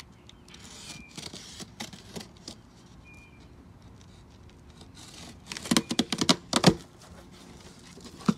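Packing tape on a cardboard box being slit and peeled away: scattered scratchy clicks and scrapes, then a burst of loud ripping and crackling a little under six seconds in as the top flaps are pulled open.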